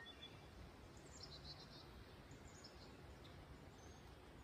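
Near silence with faint bird chirps: a quick run of high chirps about a second in and a few more near the middle.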